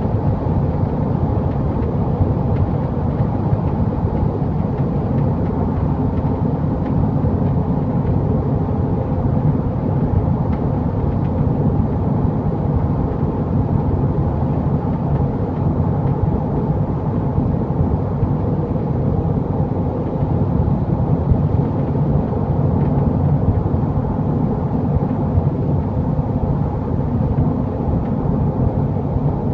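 Toyota GT86 driving steadily above 100 km/h: a constant rush of road and engine noise, with faint intermittent ticks of the rattle that shows up at these speeds.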